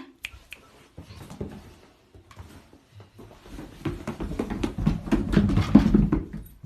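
A dog's paws thudding down a staircase in a quick patter of thumps. The thumps start sparse and become dense and louder about four seconds in, then stop shortly before the end.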